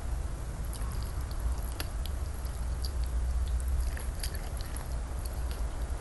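Close-miked chewing of raw salmon sashimi: wet mouth smacks and sharp clicks scattered through, over a steady low hum.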